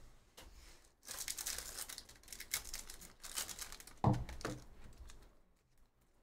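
Foil wrapper of a Topps Chrome baseball card pack crinkling as it is torn open, for about three seconds starting a second in. Lighter handling of the cards follows.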